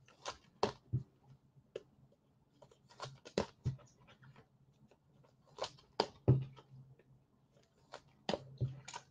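Trading cards being handled and sorted: irregular clicks and light flicks, some in quick clusters, over a faint steady low hum.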